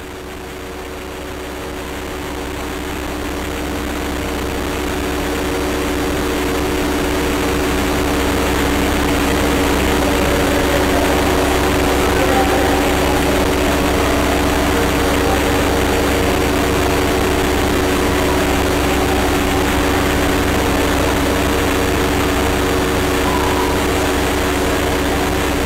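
A steady drone: several held low tones over a rushing hiss and a low rumble, fading in over the first several seconds and then holding level.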